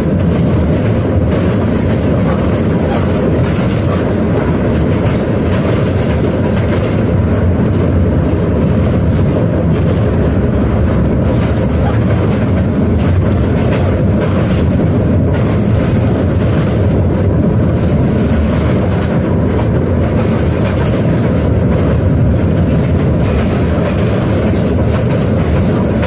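KTM-28 (71-628-01) tram running at a steady speed, heard from inside the passenger cabin: a loud, continuous, even rumble of wheels on rails and running gear.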